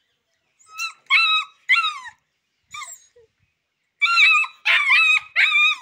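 Rottweiler–Boxer mix puppy barking in high-pitched yaps: about four short barks in the first two seconds, a pause, then a quick run of three near the end.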